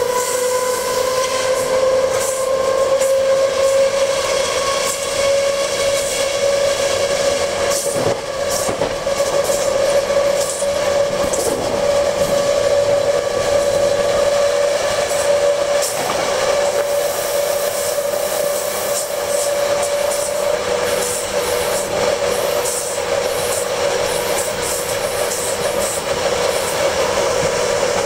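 Traction motors of an ÖBB class 4020 electric multiple unit whining while the train runs, a steady tone whose pitch climbs slowly over the first half and then holds. Under it is the running noise of the wheels on the track, with scattered clicks over rail joints.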